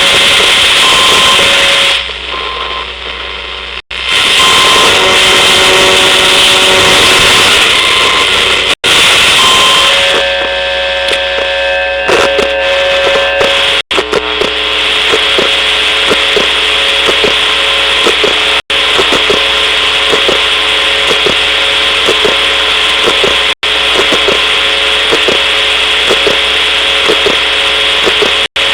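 Electromagnetic emissions from a laptop hard drive picked up as audio: a loud electronic buzz and hiss with several steady whining tones. Its character shifts every few seconds, with brief dropouts about every five seconds. From about halfway through, a regular pulsing at roughly two beats a second joins in.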